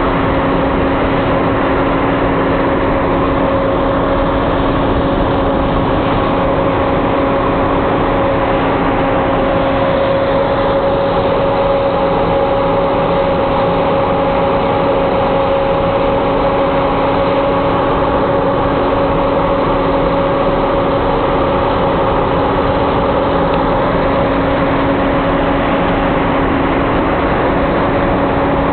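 John Deere combine harvester running steadily while harvesting wheat: an unbroken mechanical drone with a constant hum.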